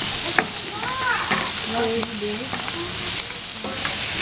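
Chopped shrimp and pork sizzling in oil in a nonstick frying pan, stirred and scraped with a silicone spatula. The spatula knocks against the pan now and then, giving scattered sharp clicks over the steady sizzle.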